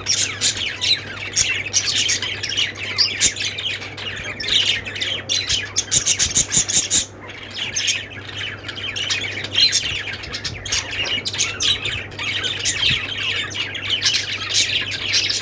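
Small pet parrots chirping and squawking nonstop, many overlapping high calls with a brief lull about halfway through. A low steady hum sits underneath.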